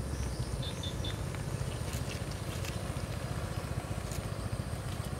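Low steady rumble of motor vehicles on the road, with three short high chirps about a second in.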